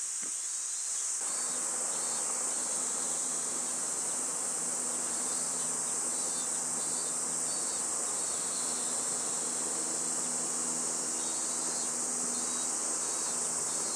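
A steady, high-pitched chorus of shrilling insects, with a faint low hum beneath that comes in about a second in.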